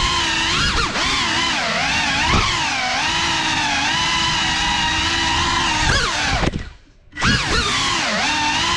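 Cinelog 35 FPV cinewhoop on a 6S battery, its brushless motors and ducted propellers whining, the pitch rising and falling with throttle. About two-thirds of the way through, the motors cut out for about half a second, then spool back up.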